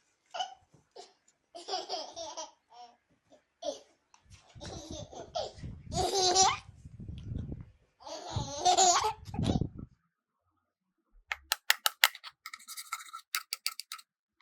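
A baby laughing and giggling in several bursts. Near the end comes a quick run of clicks, then a short stretch of rapid electronic beeps.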